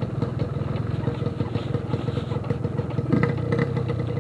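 Yamaha RX-King's single-cylinder two-stroke engine running through a 'Packing Power' aftermarket exhaust, a rapid, even popping of exhaust pulses that swells briefly about three seconds in.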